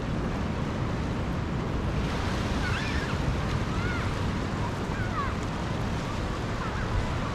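Sea surf washing steadily against the shore, with wind on the microphone. A few faint, short, high calls sound in the middle.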